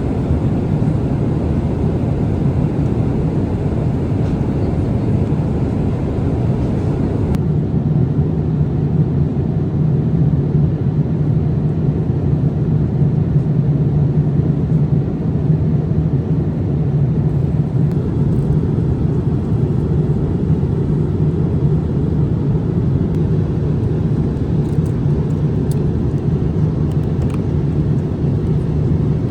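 Steady cabin noise of a Boeing 787-8 in cruise flight: an even rush of airflow and engine noise, heaviest in a low hum. The higher hiss softens slightly about seven seconds in.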